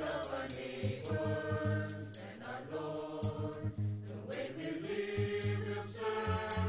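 A song sung by a group of voices with instrumental backing: held sung notes over a bass line and regular cymbal-like percussion strikes.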